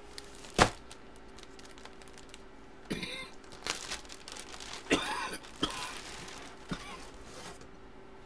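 Clear plastic bag around a jersey crinkling as it is handled, in two short stretches, with a sharp knock about half a second in and a few softer knocks of a cardboard box being moved.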